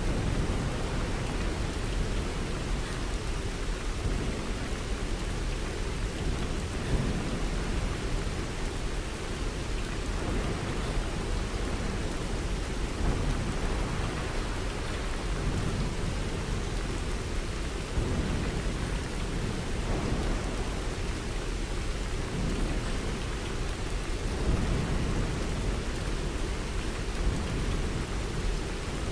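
Steady rain falling, with a low rumble that swells and fades beneath it.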